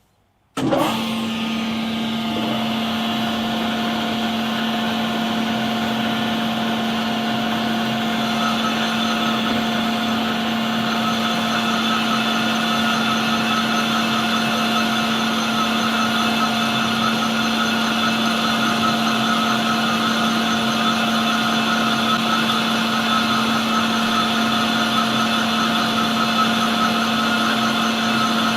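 Metal lathe starting up and running steadily while a carbide-tipped tool takes a very light facing cut across a car flywheel's mating face. A higher-pitched whine joins about eight seconds in and holds steady.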